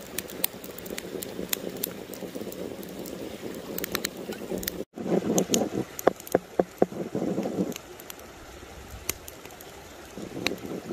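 A small stream running, with scattered little clicks. After a sudden cut about five seconds in, a wooden stick stirs raw egg yolks in a well of flour, with a quick run of sharp taps before the stirring eases off.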